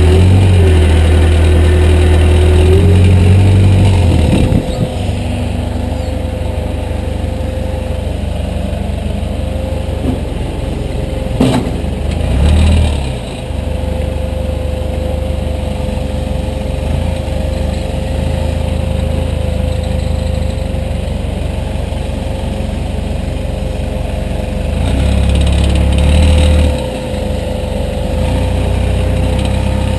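Backhoe's diesel engine running, louder under load for the first four seconds and again about twenty-five seconds in, with a steady whine underneath. A single sharp knock sounds about eleven seconds in.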